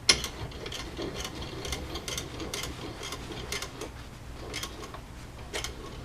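Irregular light metal clicks and ticks, a few a second, with a sharper knock just after the start, from hand tools being handled and worked.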